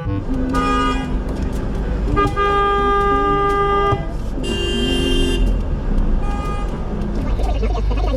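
Car horns honking four times: a short honk, a long blast of nearly two seconds, another of about a second, and a short one near the end, over traffic rumble.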